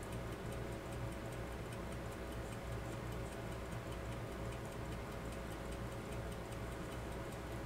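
Faint, rapid, even ticking of a mechanical timepiece over a steady low hum.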